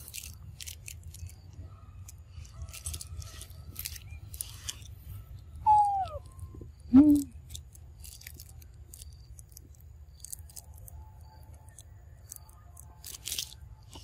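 Two short calls from young macaques about halfway through: a falling squeal, then a louder, lower cry. Scattered rustling and a low rumble run beneath them.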